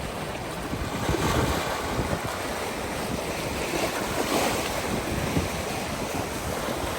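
Sea waves washing on the shore, with wind gusting against the microphone in irregular low rumbles.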